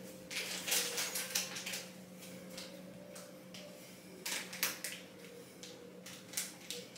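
Plastic piping bag crinkling with light clicks as it is squeezed and handled while piping, coming in scattered clusters over a steady low hum.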